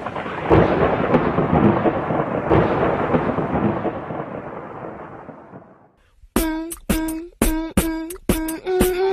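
A rumbling, thunder-like sound effect fading away over about six seconds. After a moment of silence comes a rhythmic run of short, pitched beatboxed vocal notes, about two a second.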